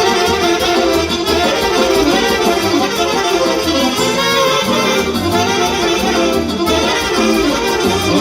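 Instrumental break of Romanian ardeleană party music: an accordion plays a quick melody over a band with a bass line and a steady beat.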